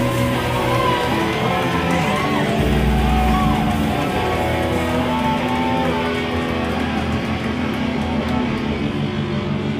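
Live rock band playing loud, guitar-driven music, heard from inside the crowd. Sustained electric guitar notes bend and waver in pitch over a heavy low end.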